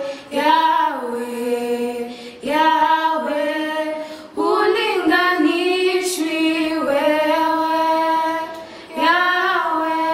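Two teenage girls singing a Swahili worship song together a cappella, in long held phrases with short breaths between them.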